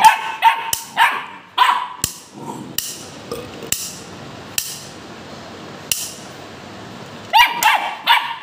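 Young pit bull barking in short, sharp barks at a toy gun held out to it, agitated by the gun: a quick run of four barks, then a pause broken by a few sharp clicks, then more barks near the end.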